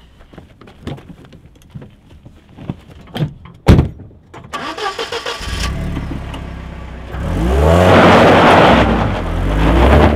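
Car door clicks and thumps shut hard, then a first-generation Mercedes-Benz SLK's engine cranks and starts. It idles briefly, then revs up as the car pulls away over gravel, with the revs dipping and rising again near the end.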